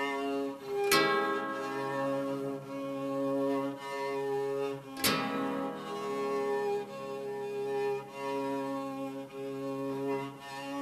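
Homemade experimental string instrument, the orcheguitar, bowed with a long bow: sustained low cello-like notes that shift in pitch every second or two. Two sharp hits, about a second in and again about five seconds in, ring on over the bowed tone.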